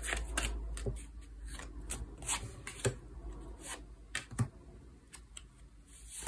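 A deck of tarot cards shuffled and cut by hand, with irregular crisp snaps and slides of card edges against each other as cards are drawn from the deck and laid down.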